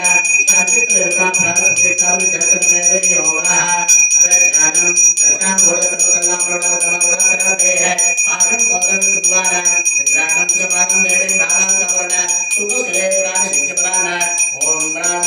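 Temple bell rung rapidly and without pause, its ringing tone held steady throughout, over devotional music with singing voices.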